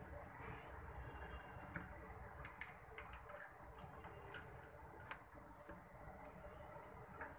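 Faint, scattered clicks and taps, a second or two apart, as a ringneck dove feeds its squab beak-to-beak in a wire cage, over a low steady hum.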